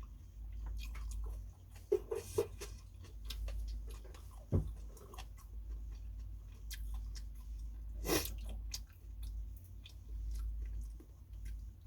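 Close-up chewing and eating sounds of a person eating phở: many small wet clicks, with a few sharper knocks about 2, 4.5 and 8 seconds in. A low steady hum runs underneath.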